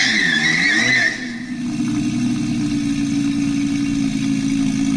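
Car sound effect: tyres squealing while the engine pitch dips and rises, the squeal stopping about a second in, then the engine running on at a steady pitch.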